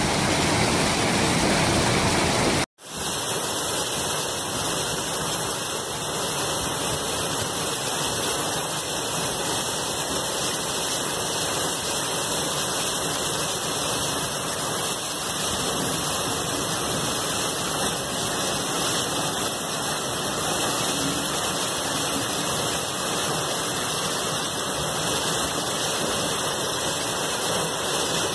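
Heavy rain mixed with hail pouring down in a steady, dense hiss. It breaks off briefly about three seconds in, then resumes.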